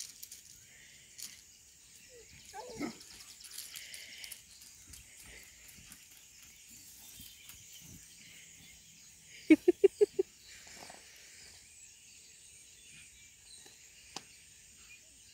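Dogs at rough play: a short whining cry about three seconds in, then a quick string of five high-pitched barks a little past halfway. Between them the background is faint.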